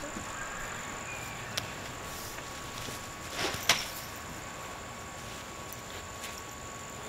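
A lacrosse shot: a swish of the stick building just past three seconds in and ending in one sharp crack, the loudest sound. There is a lighter click about a second and a half in, and insects chirr steadily throughout.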